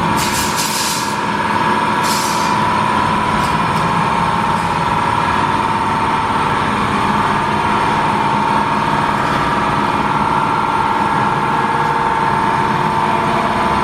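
A workshop machine runs with a steady, slightly wavering whine over a hiss. It lets out two short, sharp hisses in the first few seconds.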